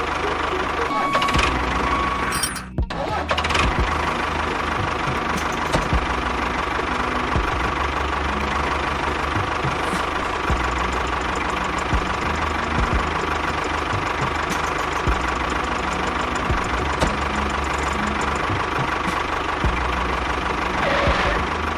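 A small engine running steadily, with a short break about three seconds in.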